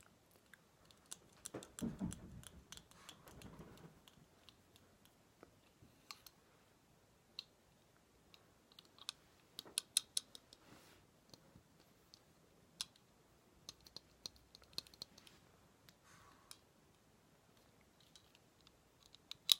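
Sparse, light clicks and taps made close to the microphone as an ASMR trigger, coming in small clusters, with a soft rustle about two seconds in.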